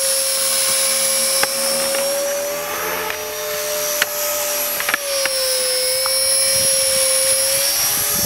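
Esky Belt CPX electric RC helicopter in flight, its rotor and motor giving a steady buzzing whine with a high shrill overtone. The pitch drifts up slightly and then dips as the rotor speed changes, with a few faint clicks.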